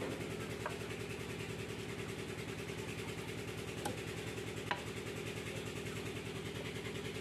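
An engine or motor idling steadily with an even, fast pulse, with a few light clicks over it.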